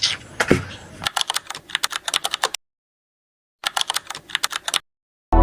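Rapid, irregular light clicks in two short runs, like keys being struck, broken by stretches of dead silence; music begins right at the end.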